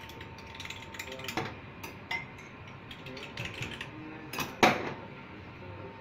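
Glasses and a steel mug clinking and knocking on a stainless-steel counter while teh tarik is being made: a few sharp knocks, the loudest about three-quarters of the way through with a short ring after it.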